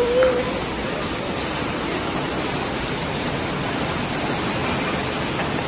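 Steady rain falling, an even hiss, with a brief squeak at the very start.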